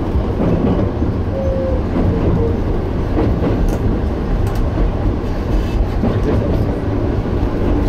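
Toyama Chihō Railway electric train running along the Tateyama Line, heard from aboard: a steady, heavy rumble of wheels and running gear. A short tone rises above it about a second and a half in.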